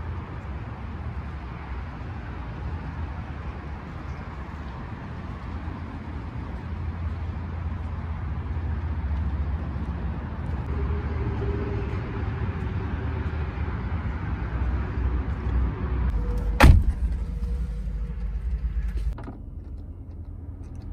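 Steady low outdoor rumble for most of the stretch, then a single sharp bang about three-quarters of the way through: a car door shutting. The rumble drops away a couple of seconds later.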